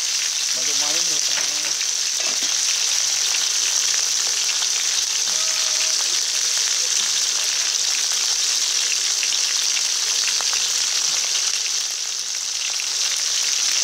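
Whole mackerels frying in shallow hot oil in a metal wok: a steady sizzle full of fine, dense crackling spatter.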